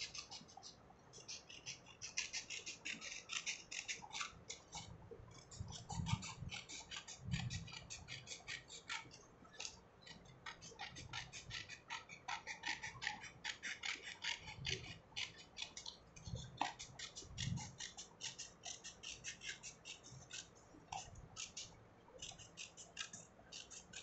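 Scissors cutting a circle out of a sheet of A4 paper: a long run of quick, crisp snips as the blades close again and again, with a few soft low thumps.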